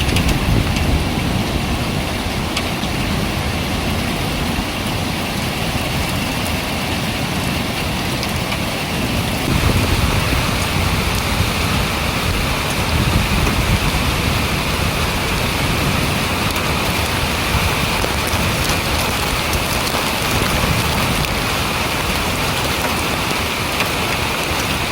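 Heavy typhoon rain pouring steadily, with a low rumble underneath. It gets a little louder about ten seconds in.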